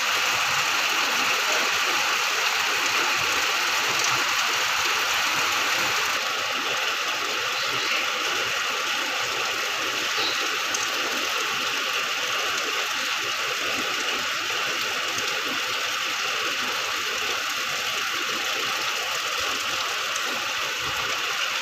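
Steady rainfall, an even hiss that eases slightly about six seconds in.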